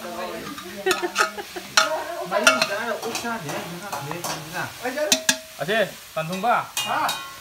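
A long metal ladle stirring and scooping thick curry in a steel pot, knocking and scraping against the pot's sides several times, with people talking alongside.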